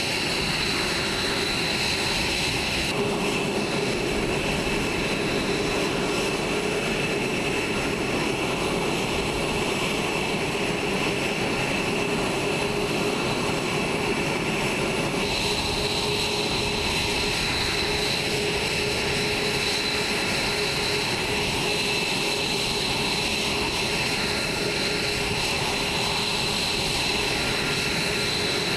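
F-22A Raptor jet engines idling on the ramp: a steady high whine over a lower hum. The tone shifts slightly a few seconds in and again about halfway through.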